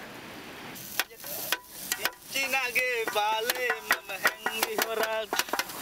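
Fish being scaled with a blade on a metal tray: a run of sharp scraping strokes from about a second in. A man's voice with held, wavering notes joins from about two seconds in.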